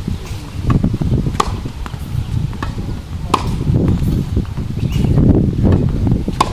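Tennis ball struck by a racket, three sharp pocks about two seconds apart in a groundstroke rally: one about a second and a half in, one past the middle and one near the end. Fainter knocks fall between the hits, over a constant low rumble.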